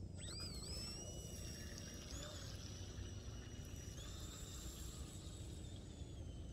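Volantex SR65 RC speedboat's electric motor whining as the boat runs on the water. The pitch swoops up as it starts, steps higher about two seconds in and again about four seconds in, then slowly sinks, following the throttle. A steady low rumble sits underneath.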